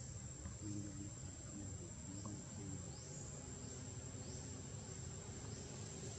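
Insects shrilling in a steady high-pitched whine, with short rising chirps repeating every second or so, over a low outdoor rumble.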